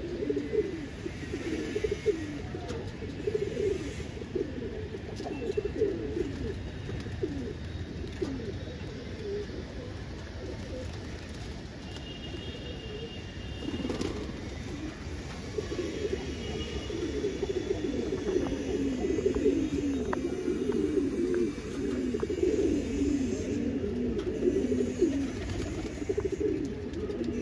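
A flock of domestic pigeons cooing together, many low overlapping coos that grow louder and denser in the second half.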